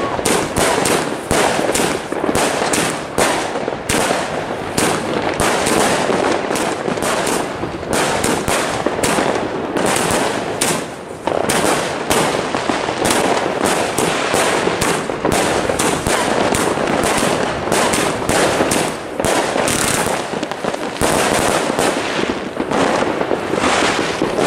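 Tristar 'Midnight Heroes' 100-shot fireworks cake firing: a rapid, unbroken string of shots and bursting stars, several a second.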